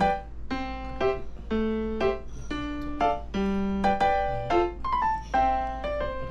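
Background piano music: a light tune of single notes played at a steady pace.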